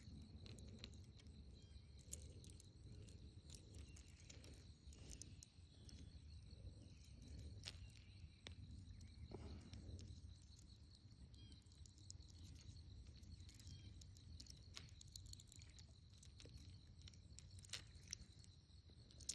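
Near silence: faint outdoor ambience with a steady high insect drone, low rumble and scattered light clicks.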